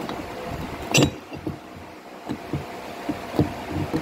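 Knocks and clanks of a rubber engine mount being handled and fitted against a welded steel mount bracket, with one sharp metal clank about a second in and a few lighter knocks after it.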